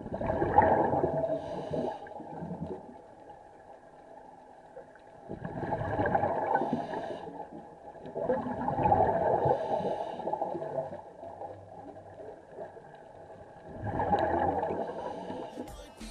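Scuba diver breathing through a regulator underwater: four rushes of exhaled bubbles burbling out, roughly every four to five seconds, with quieter gaps between breaths.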